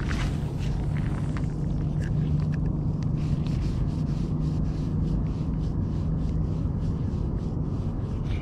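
Steady low rumble with a low hum through it that fades about seven seconds in, and faint quick ticking over it from a spinning reel being wound in.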